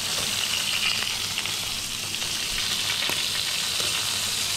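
Lamb chops and sausages sizzling on a hot grill grate: a steady fat-spitting hiss, with a few light clicks as the meat is turned.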